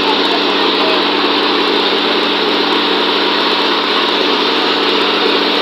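An engine running steadily, a constant drone with a low hum that does not change.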